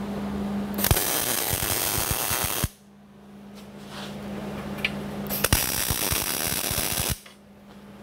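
MIG welder's arc crackling on steel in two short welds, each about two seconds long, starting about a second in and again about five and a half seconds in, with a steady low hum in between.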